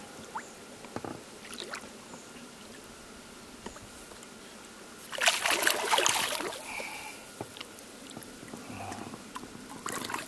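A hooked wels catfish thrashing at the surface beside a boat: one loud splash about five seconds in that lasts a second or so. Small drips and splashes of water come before and after it.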